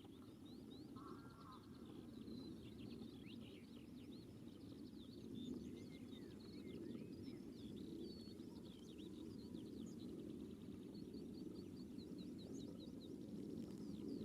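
Faint outdoor birdsong: many short, quick high chirps and trills from several birds, over a steady low background rumble.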